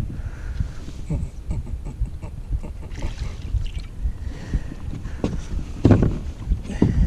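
Wind rumbling on the microphone, with scattered knocks and thumps of a landing-net pole and gear against a plastic fishing kayak's hull; the loudest knock comes about six seconds in.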